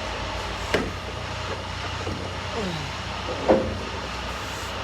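International LT's Navistar A26 diesel engine idling steadily. Two sharp clicks cut across it, one just under a second in and a louder one about three and a half seconds in.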